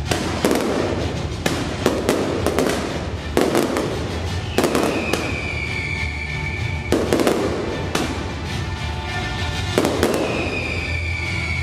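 Fireworks display: frequent sharp bangs of bursting shells with crackling, and twice a long whistle that falls slightly in pitch, about five seconds in and again near the end.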